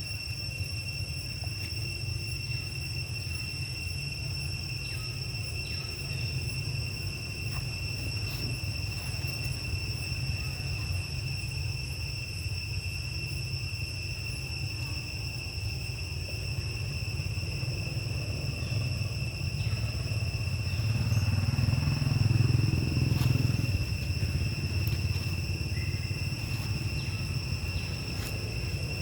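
Forest insects droning in steady high tones, over a low rumble that swells and fades about two-thirds of the way through.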